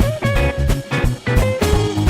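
Background music: guitar-led instrumental track with a steady drum beat.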